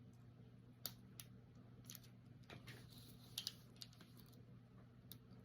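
Faint, irregular small clicks of ASP rigid handcuffs being shimmed open, with a quick pair of sharper ticks about three and a half seconds in, over a low steady hum.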